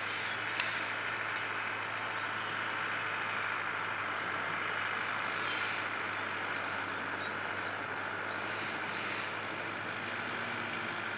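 International 743XL tractor's diesel engine running steadily as it pulls a harrow through the soil: a constant drone over a low hum. A sharp click comes less than a second in, and a few short high chirps are heard through the middle.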